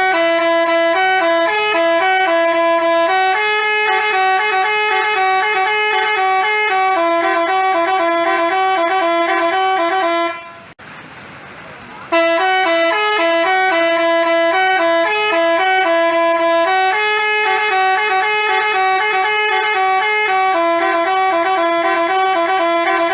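Basuri telolet multi-tone bus horn playing a melody of stepped notes. The same tune plays twice, with a break of about two seconds in the middle.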